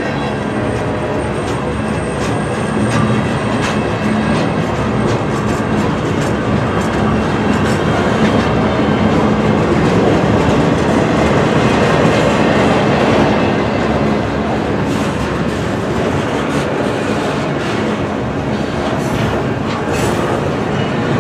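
Freight train rolling past, its car wheels clacking over rail joints in a steady rumble that swells toward the middle and eases off after.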